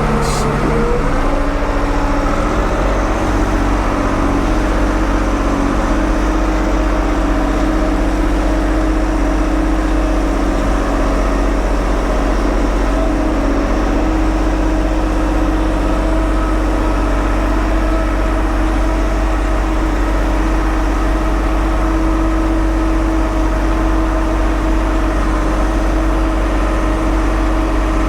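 1975 Ford 550 backhoe's engine running steadily, its pitch shifting in the first second and then holding level.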